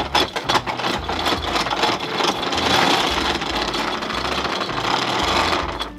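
Anchor chain running out through a catamaran's bow anchor windlass as the anchor is let go, a steady rapid rattle of clanking links.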